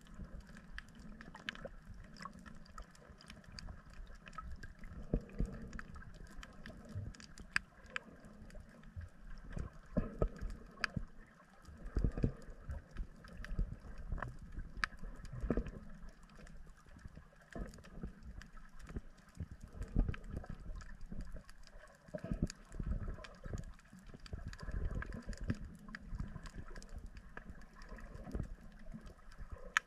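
Underwater ambience recorded on the reef: muffled low rumbling and irregular thuds of moving water, with scattered faint sharp clicks throughout.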